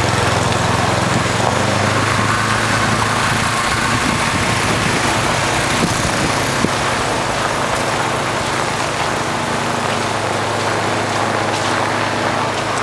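An engine running steadily at idle, a low even hum that lasts throughout, under a steady broad hiss.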